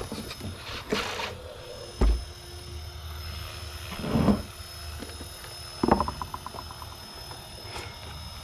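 Handling knocks and rustles: a dull thump about two seconds in, a louder rustling burst around four seconds, and a sharp knock near six seconds followed by a quick rattle that dies away.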